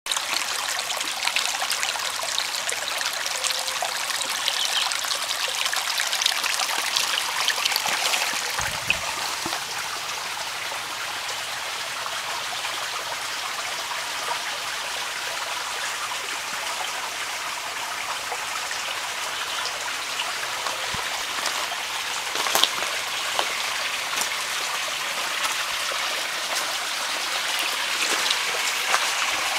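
Shallow stream trickling over rocks, a steady rush of running water. There is a low thump about nine seconds in and a sharp click about two thirds of the way through.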